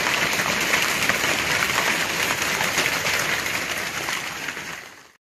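Hail and heavy rain pelting down in a storm, a dense, steady clatter of countless small hits, fading out near the end.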